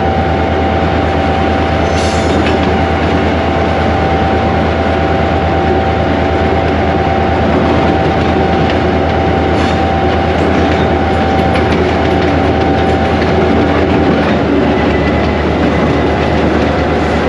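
Inside the cab of a GMU-15 diesel-electric locomotive running downhill: steady engine drone and wheel noise on the track. A steady whine stops about fourteen seconds in, and there are two sharp clicks, about two and ten seconds in.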